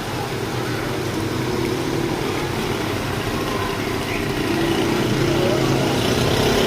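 A vehicle engine running steadily over an even background hiss, growing slightly louder toward the end.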